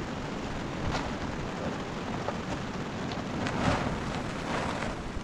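Large plastic sheet rustling and crinkling as it is pulled and spread by hand, over a steady hiss, with a few sharper crackles and the loudest one a little past the middle.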